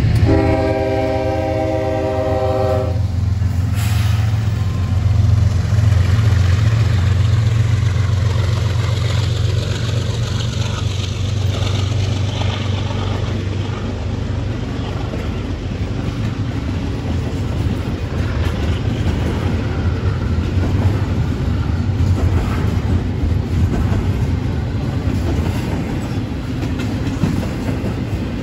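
CSX GE ES44AH freight locomotive's multi-chime horn sounding one chord for about three seconds. It is followed by the diesel locomotives and the double-stack intermodal cars rolling past the crossing as a steady low rumble with wheel clatter.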